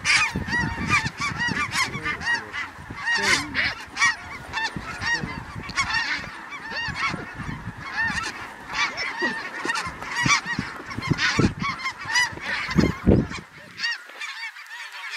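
Large flock of snow geese circling overhead, many birds calling at once in a dense, overlapping chorus of short high-pitched honks. Wind rumbles on the microphone underneath and drops away near the end.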